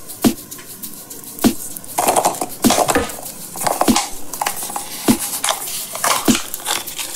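A hollow plastic surprise nesting egg being twisted and pried open by hand: repeated sharp plastic clicks and knocks, with scraping as the halves grind against each other.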